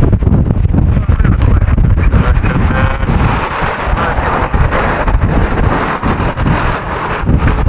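Storm-force wind of about 100 km/h battering the microphone: a loud, gusting rumble that swells and dips.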